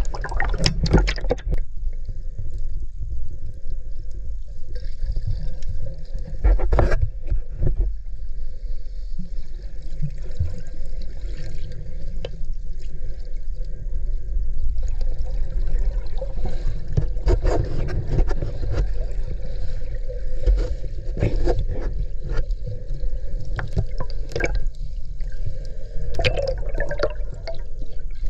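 Water sloshing and gurgling around a camera held underwater while snorkeling: a steady low rumble with scattered clicks and pops.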